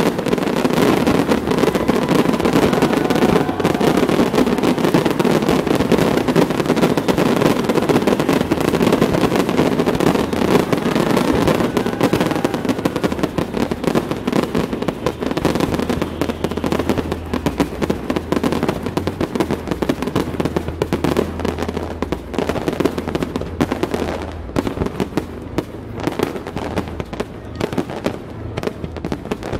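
Fireworks display: a dense, continuous barrage of bangs and crackling from bursting aerial shells and ground effects. It thins out into more separate bangs in the last few seconds.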